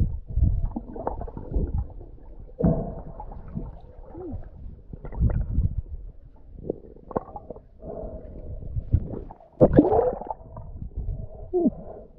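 Water gurgling and bubbling around a submerged camera, heard muffled: irregular low rushes with short sliding bubble sounds, and a louder rush near the end.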